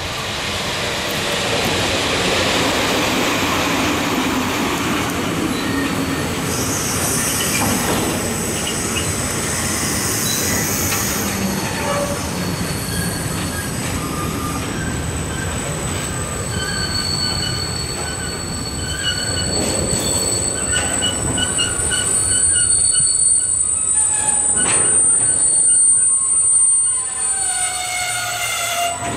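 A long freight train of tank wagons rolls past on the rails with a steady rolling noise. From about halfway, thin high-pitched squeals come and go from the wheels.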